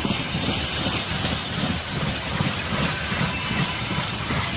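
Freight train of open wagons and tank cars rolling past, a steady noise of wheels running on the rails.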